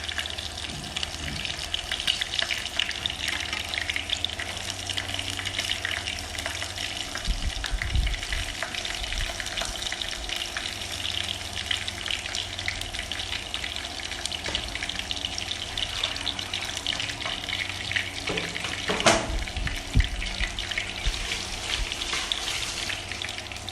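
Breaded shrimp deep-frying in hot oil, a steady dense crackling sizzle. A few dull knocks come through it, loudest twice about two-thirds of the way in.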